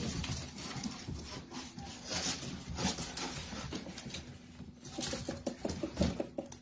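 Two cats scuffling at the foot of a door, pawing at a cord: a run of scratching, rubbing and light knocks against the door and floor, busiest near the end.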